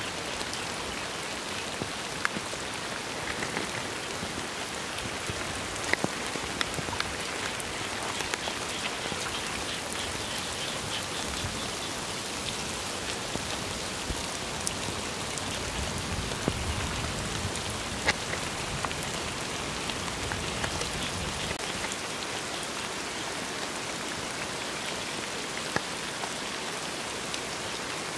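Steady rain falling, a constant hiss with scattered sharp ticks of single drops.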